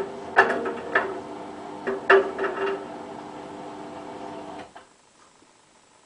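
Hotpoint Ultima WT960 washing machine's drum, empty but for a plastic cap, running down at the end of an intermittent spin. The motor hum carries several sharp clacks and knocks in the first three seconds, then cuts off about three-quarters of the way in as the drum stops.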